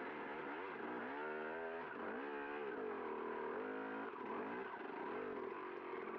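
Enduro dirt bike engine revving up and down, rising and falling in pitch about three times, then running lower and steadier for the last couple of seconds.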